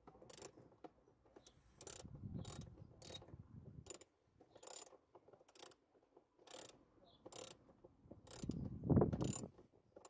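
Hand screwdriver turning screws at the glovebox opening in a car's dashboard: a sharp click about every two-thirds of a second, with a longer, louder rubbing sound about two seconds in and again near the end.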